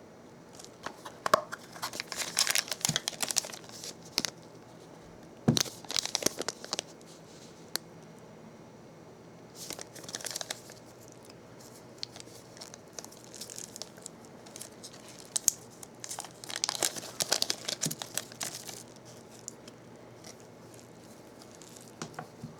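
Packaging being crinkled and torn open by hand: four bursts of rustling and tearing with pauses between, and a few sharp clicks.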